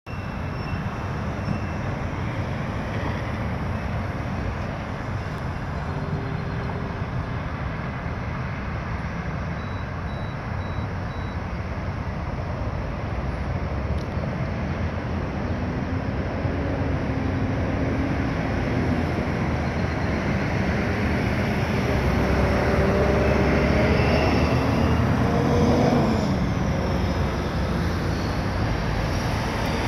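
Road traffic noise with passing vehicles; in the second half an engine grows louder, its pitch shifting up and down as it goes by. Three short, faint high beeps about ten seconds in.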